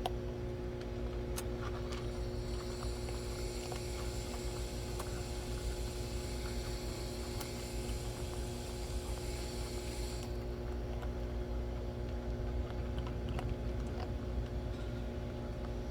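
A steady low mechanical hum with several held tones, with a few faint clicks over it.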